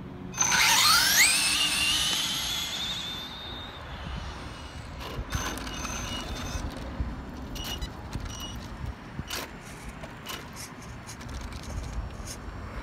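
Electric RC drag car's motor and drivetrain whining up sharply in pitch as it winds up, for about three seconds, then fading away; scattered light clicks follow.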